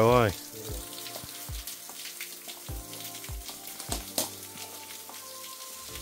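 Water from a small waterfall dripping and splashing, a steady crackling patter, with a few low thumps scattered through it.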